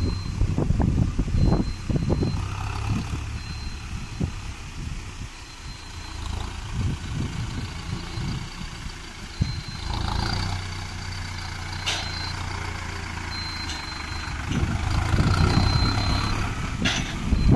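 Mahindra Arjun Novo tractor's diesel engine running as it tows a trailer loaded with a combine harvester, growing louder as it draws near. A faint high beep sounds on and off throughout.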